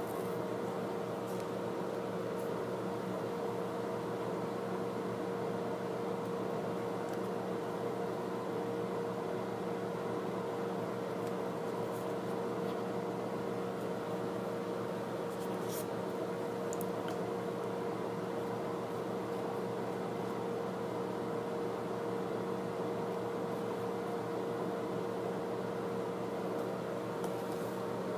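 Steady machine hum with a constant tone over even background hiss, and a few faint light clicks about halfway through.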